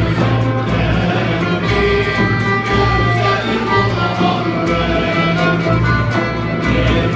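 Live Turkish music ensemble playing, the violin most prominent over kanun, oud, ney and a frame drum keeping a steady low beat, with a male choir singing along.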